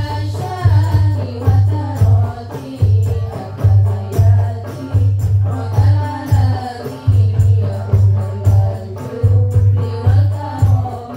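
Women's group singing sholawat together into microphones, accompanied by rebana frame drums. The drums beat a steady deep pulse, about three beats every two seconds, with sharper hand strokes between.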